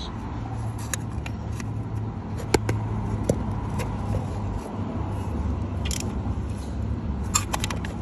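A steady low hum in the background, with scattered light clicks and taps as a metal hand tool is handled against the engine's casting.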